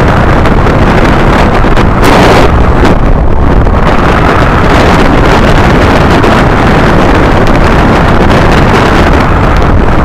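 Loud, steady rush of wind over the microphone of a camera mounted on a hang glider's upright in flight, with a stronger gust about two seconds in.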